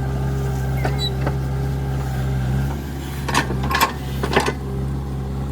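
Heavy diesel engine running steadily at a low, even pitch, with a few sharp metallic clanks about three to four seconds in.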